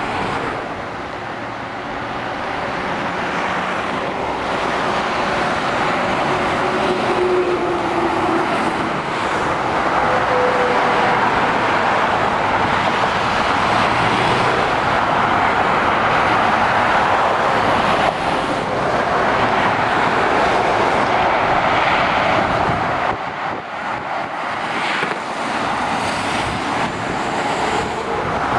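Steady motorway traffic noise from lorries and cars passing, mostly the rush of tyres on the road. It eases briefly about three-quarters of the way through, then builds again.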